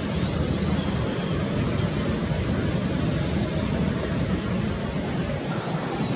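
Boeing 747-8F freighter's four GEnx-2B turbofan engines at take-off thrust, a steady, deep rushing noise without change during the take-off run.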